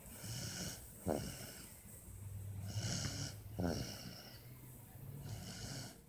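Snoring during a nap: a low buzzing snore on the breaths, with airy hissing between them. There are sharp short sounds about a second in and again a little past the middle, in a slow repeating breath cycle.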